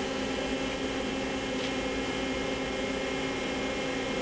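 Main spindle of a Star SV-32J Swiss-type CNC lathe running at a steady speed of about 1000 rpm, a steady multi-tone whine over the machine's motor and fan hum.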